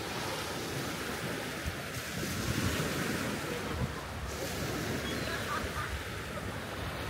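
Sea surf washing onto the beach as a steady rushing wash that swells a little about two to three seconds in, with wind buffeting the microphone.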